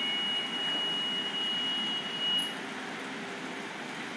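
A steady, high-pitched electronic beep held for about two and a half seconds, cutting off with a click. Under it runs the steady hiss and hum of an automatic touchless car wash bay.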